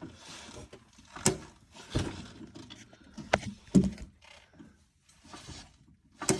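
LG GT2 coilover clicking as the suspension is flexed up and down on a jack: about four sharp clicks at irregular intervals, with fainter rubbing noise between them. The noise comes from a dry coilover and goes away once it is lubricated.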